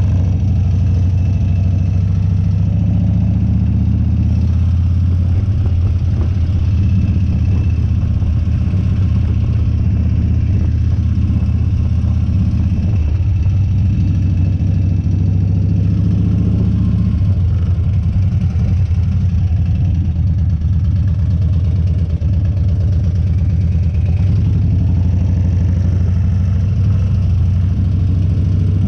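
Harley-Davidson Dyna's V-twin engine running steadily, heard from the bike while it is ridden.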